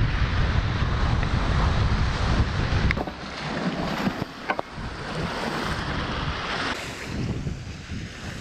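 Wind buffeting the microphone, heaviest for about the first three seconds, over sea waves washing against rocks. A few sharp clicks come in the middle.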